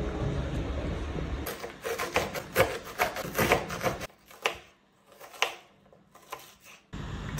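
Kitchen knife chopping an onion on a bamboo cutting board: a run of quick, irregular knocks of the blade on the wood, starting about a second and a half in, with the strokes more spaced out near the end.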